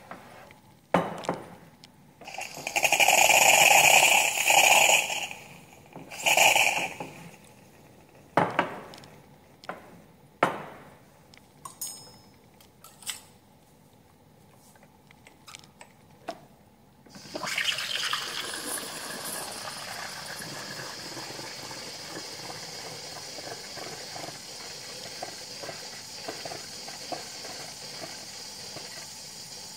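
DeLonghi EC145 espresso machine in use: clicks and knocks, with two loud rushing spells of water early on. A little past halfway the milk-frother steam wand starts a steady hiss that keeps going.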